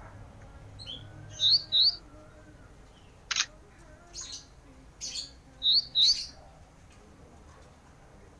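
Ranting songbird giving short, sharp high chirps: two quick pairs of rising notes, a single sharp note a little past the middle, and a few more chirps after it.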